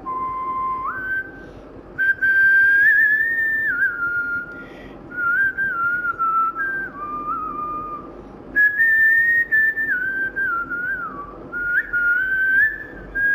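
A person whistling a song melody. The pitch steps and slides from note to note in phrases, with two short pauses for breath.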